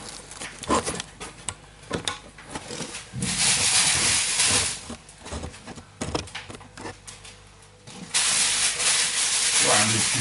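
Scattered knocks and taps, then two stretches of loud rustling, scraping noise, one of about a second and a half a few seconds in and another from about eight seconds on, as a deflated PVC inflatable boat is handled and shifted about on a concrete floor.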